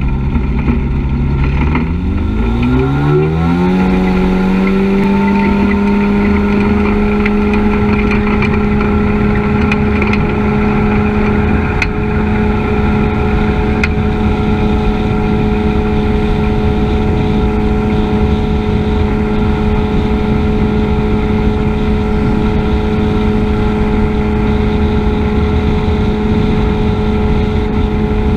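Dragonfly ultralight's engine and pusher propeller speed up over about two seconds as the throttle is opened for takeoff, then run at a steady, high pitch through the takeoff roll and climb-out.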